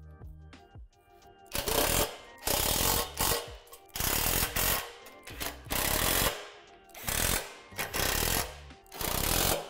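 Cordless drill driving bolts in about seven short runs, each a second or less long, starting about a second and a half in.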